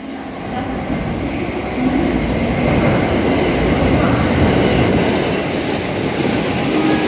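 JR West 683 series electric limited express train pulling into the platform. Its running noise grows loud over the first two seconds as it nears, then holds steady as the carriages roll past.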